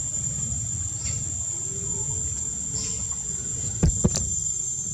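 Steady high-pitched buzzing of insects over a low rumble, with two sharp clicks about a quarter second apart near the end.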